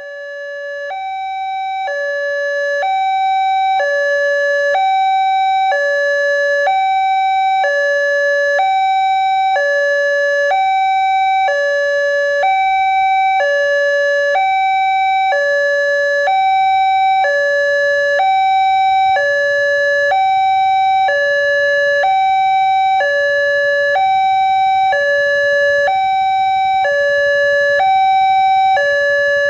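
Railway level crossing's new electronic warning siren sounding, alternating steadily between a low and a high tone, each held about a second. It swells up in loudness over the first couple of seconds, then holds steady.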